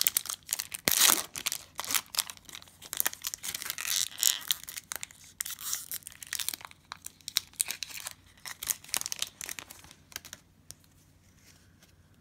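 Wrapper of a Panini Prizm football card pack being torn open and crinkled by hand: a run of sharp crackles and rustles that stops about ten seconds in.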